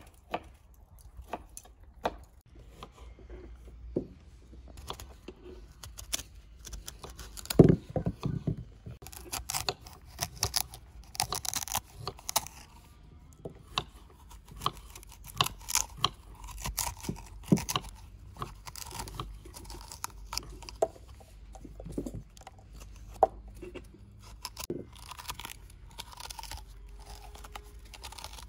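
A small knife cutting and scraping out the core of raw quinces: repeated crisp crunches and scrapes of hard fruit flesh, with one louder knock about eight seconds in.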